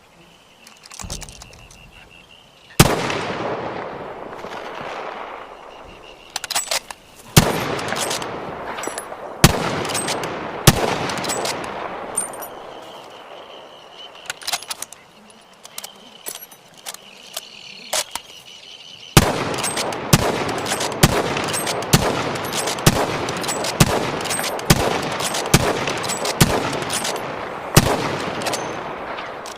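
Lee-Enfield No.4 Mk I .303 bolt-action rifle firing: single loud shots about 3, 7, 9 and 11 seconds in, each with a long rolling echo. From about 19 seconds comes a quicker run of sharp reports, about two a second, over a continuous echo.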